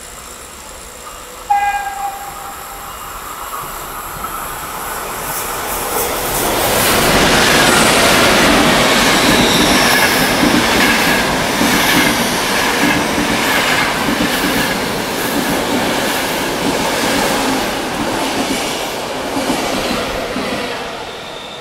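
Frecciarossa high-speed electric train passing through the station at speed without stopping. A short horn note about a second and a half in, then a rush of wheel and air noise with rapid clacking of the wheels grows loud, holds for several seconds and eases off near the end.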